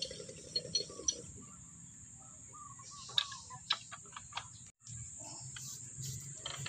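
A few sharp metallic clicks and taps of pipe wrenches being set and gripping on a steel deep-well pipe and its coupling, spread through the first four seconds.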